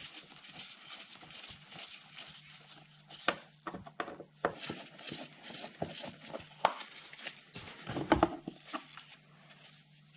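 Scattered clicks and knocks of hard plastic being handled as the securing screws of a car's plastic air filter housing are taken out and the lid is lifted off, with a cluster of louder knocks near the end.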